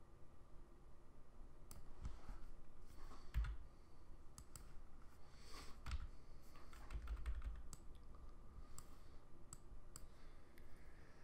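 Scattered clicks of a computer mouse and keyboard as pixels are edited, with a few dull low thumps between them.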